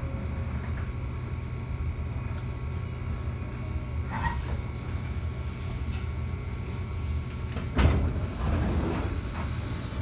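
JR 211 series electric train: a steady low rumble and hum, with a sudden loud knock near the end followed by a brief rush of noise.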